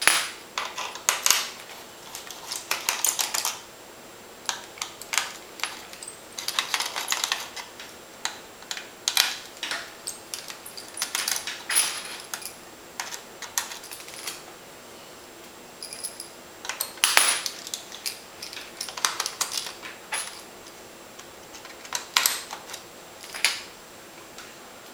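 Small metal screws and screwdrivers clicking and clinking against a Sony Vaio laptop's case and a tiled tabletop as screws are backed out of the laptop's underside and set down, in scattered clusters of clicks, some with a short high metallic ring.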